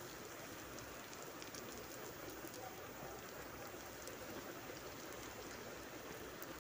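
Panipuri puris frying in hot oil in an aluminium kadai on a low flame: a steady, soft sizzle with fine crackles.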